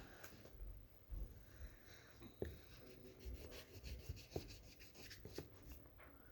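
Faint scratching of a colouring tool on paper, in quick repeated back-and-forth strokes as an area is coloured in.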